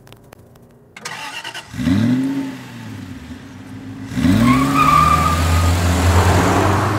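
Car engine revved in two quick blips, the second held high while the tyres squeal and screech; the tyre noise swells and then fades out near the end.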